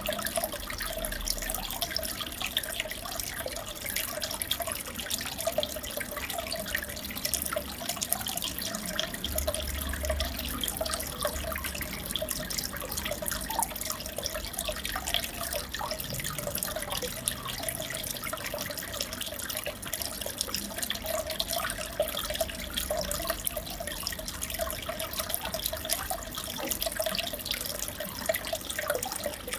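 Aquarium water trickling and splashing steadily, a dense patter of small drips and bubbles with a faint steady hum underneath, as from the tank's filter circulating the water.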